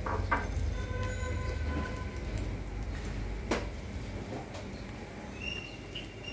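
Beaten eggs sizzling in a frying pan while a slotted metal spatula clinks and scrapes against the pan. There are two quick knocks at the start and a sharper one about three and a half seconds in, over a low steady rumble.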